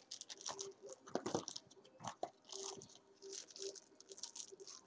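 Plastic wrapping and cardboard phone packaging being handled, crinkling and rustling in short, irregular crackles.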